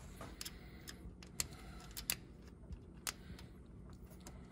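Several faint, scattered clicks and light taps of small metal screws being picked up and handled, over a faint steady low hum.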